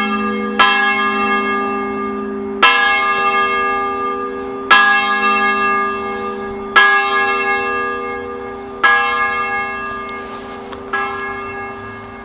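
Church bells ringing, one stroke about every two seconds. The strokes grow steadily weaker toward the end as the ringing dies away.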